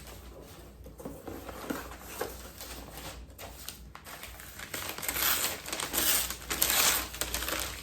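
Packaging crinkling and rustling as a wrapped pin is handled and opened. The rustling grows louder for the last few seconds.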